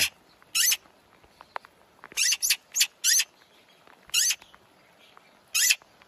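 Young magpie fledglings giving short, harsh, high-pitched begging calls as food is offered, seven calls in all, some singly and some in quick pairs.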